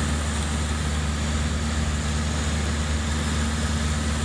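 Cessna 152's four-cylinder Lycoming O-235 engine and propeller running steadily in flight, heard from inside the cockpit as a deep, even hum over a rush of air.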